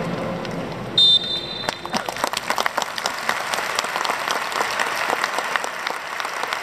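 Stadium crowd clapping, a dense patter of many separate hand claps, with a brief high whistle about a second in.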